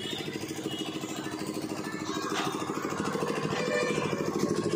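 An engine running steadily at idle, with a fast, even pulse that grows a little louder toward the end.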